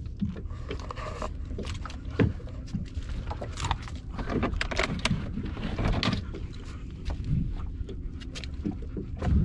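Hands working a hook out of a snapper's mouth on a plastic cooler lid: scattered clicks, taps and short scrapes, with a sharp knock about two seconds in and another near the end, over a steady low rumble.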